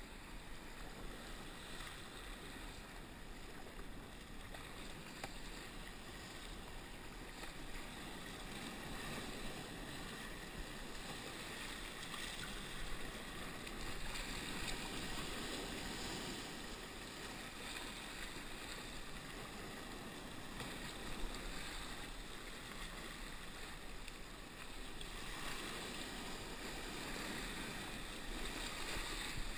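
Sea kayak being paddled through choppy sea: a steady rush and slosh of water along the hull and paddle blades, with a few brief louder splashes.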